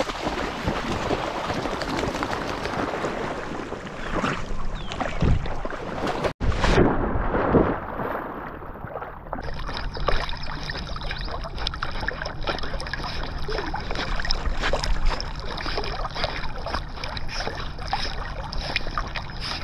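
Water splashing and sloshing right at a dog-mounted action camera as a German Shepherd plunges into a pond and swims. A big splash comes about six seconds in, the sound goes muffled for a couple of seconds as the camera dips under, then steady sloshing and lapping follows.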